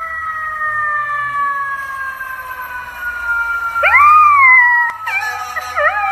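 A siren sounds in one long, slowly falling tone. About four seconds in, a golden retriever puppy joins with a howl that rises and then falls, the loudest sound here, and near the end starts a wavering howl along with the siren.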